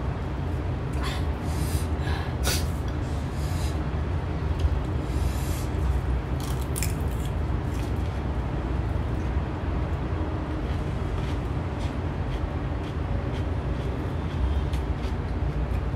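Crunchy bites and chewing of raw cucumber, a string of crisp crackles in the first seven seconds or so that then die down, over a steady low hum.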